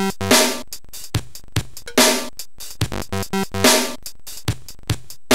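Electronic music from an Amiga 64K intro, played on an Amiga 1200: a drum-machine beat with short bass notes and a loud, noisy crash-like hit a little under every two seconds.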